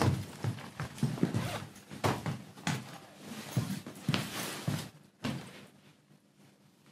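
A bag being rummaged through: rustling and a quick run of irregular knocks as things inside are handled, stopping about five seconds in.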